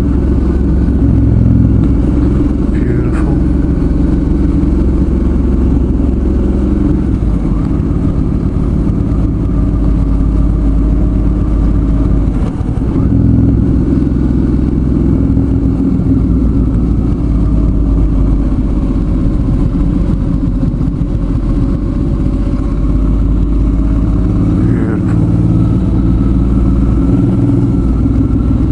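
Suzuki V-Strom 650's V-twin engine running under way on the road, steady and loud, its pitch slowly rising and falling with the throttle, over a heavy low rumble.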